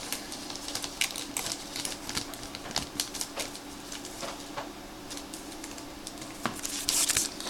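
Baseball trading cards being handled and flipped through: scattered light clicks and flicks of card stock, with a denser rustle of a pack wrapper near the end, over a faint steady hum.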